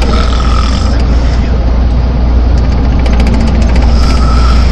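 A person snoring, two snores about four seconds apart, over the steady low rumble of a moving vehicle.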